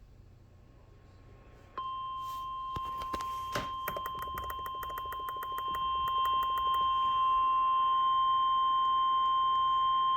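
Emergency weather radio alert tone, the 1050 Hz warning alarm of a tornado watch alert: a single steady tone that starts suddenly about two seconds in and gets louder about halfway through. A run of rapid clicks and crackles sounds over it in the middle, and before the tone there is only a faint hiss.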